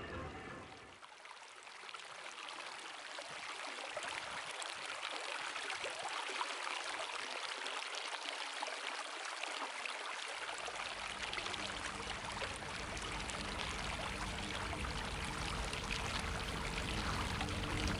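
Water pouring in a steady stream from an upturned plastic bottle into a clear acrylic box, splashing and trickling. Low music fades in about two-thirds of the way through.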